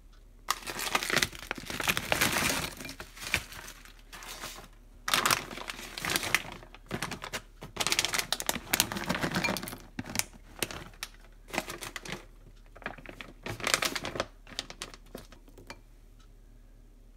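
Plastic food bags crinkling in repeated bursts as they are handled and frozen berries and nuts are taken out of them. The handling stops about a second before the end.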